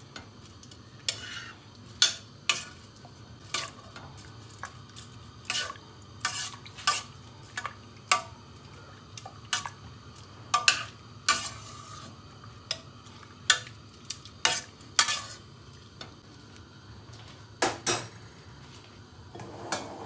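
A spoon stirring spaghetti in a stainless steel pot of hot water, knocking and tapping against the pot's side in irregular clinks, roughly one a second.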